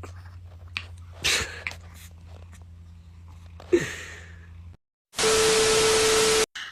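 A dog makes two short breathy sneeze-like noises over a low steady hum, the second starting with a brief falling squeak. About five seconds in, a loud burst of static with a steady tone through it lasts about a second and a half and cuts off abruptly.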